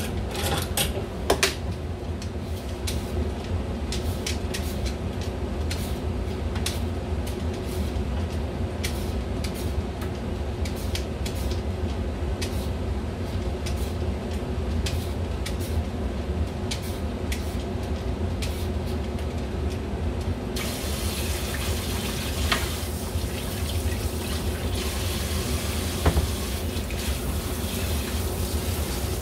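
Kitchen tap running into a stainless-steel sink while a Korean radish is rubbed clean under the stream by hand, with a few knocks near the start. The splashing turns brighter and hissier about two-thirds of the way through.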